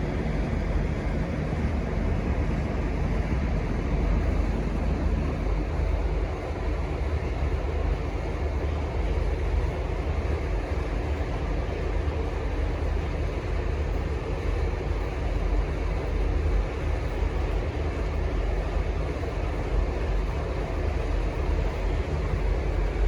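V/Line N class diesel-electric locomotives running with a steady low engine rumble; no horn sounds.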